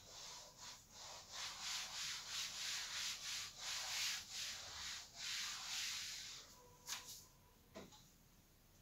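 A cloth duster wiping a chalkboard clean: a run of quick back-and-forth rubbing strokes, about two or three a second, that stop about two-thirds of the way through, followed by a couple of faint knocks.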